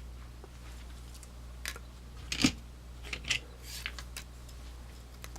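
Light clicks and taps of Swiss Army knives with aluminium scales being handled, set down and picked up: about half a dozen small knocks, the loudest about two and a half seconds in. A low steady hum runs underneath.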